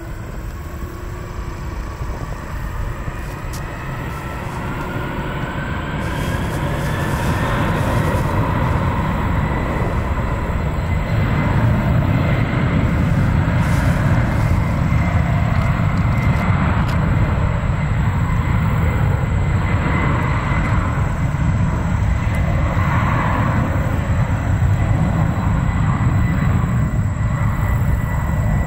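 Jet airliner's turbofan engines spooling up for takeoff: a whine rises over the first several seconds and then holds steady over a loud, low rumble that builds with it.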